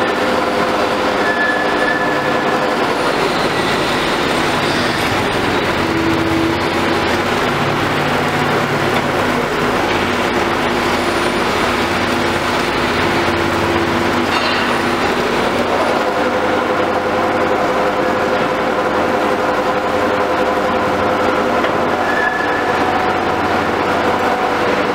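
Gasoline engine of a trailer-mounted hydraulic drilling rig, upgraded to 27 horsepower, running steadily under a function test while the rig's hydraulics are worked. Its tones shift with the changing load, and one rises and settles higher about 15 seconds in.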